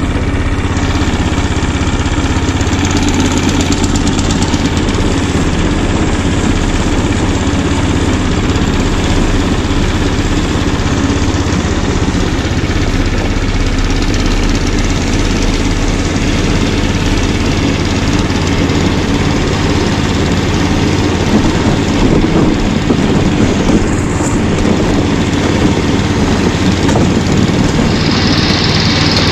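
Snow Dog tracked snow machine's small gas engine running steadily as it pulls a loaded sled over packed snow, a constant drone with the noise of the track. A higher hiss joins in near the end.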